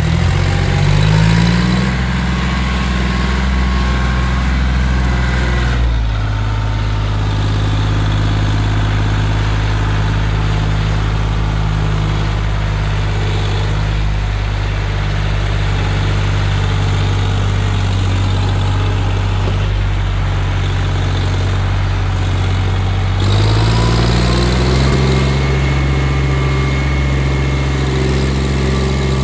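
John Deere 5039 tractor's three-cylinder diesel engine running hard under heavy load, hauling a fully loaded soil trolley. The engine revs climb in the first couple of seconds, hold steady, then climb again about 23 seconds in.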